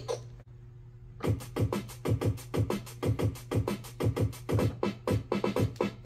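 VTech Little Smart Super Sound Works toy keyboard playing one of its built-in drum-machine rhythms: a quiet gap, then from about a second in a steady electronic beat of low kick thumps and sharp clicks, about three hits a second.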